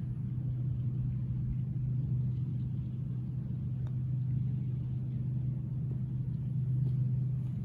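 Motorboat engine running with a steady low drone that holds at one level throughout.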